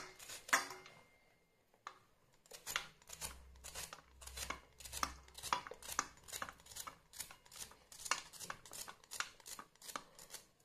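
Knife chopping on a cutting board in quick, regular strokes, about three a second, starting a couple of seconds in.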